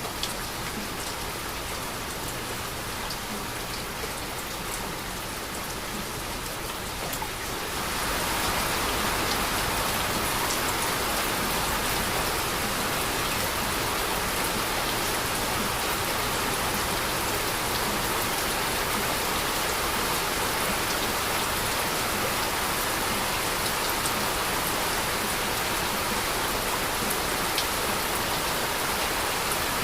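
Steady heavy rain falling, growing louder about eight seconds in and then holding even.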